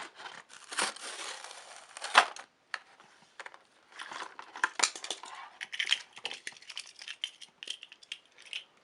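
Cardboard and plastic packaging being torn open and handled: irregular crinkling and rustling with sharp crackles, loudest about a second and two seconds in.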